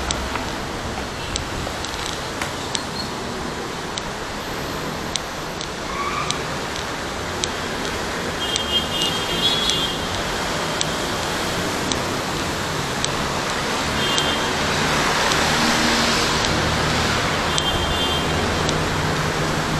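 Steady city road traffic from the street below, rising to its loudest with a passing vehicle about three-quarters of the way through. Light footsteps tick at a walking pace over it.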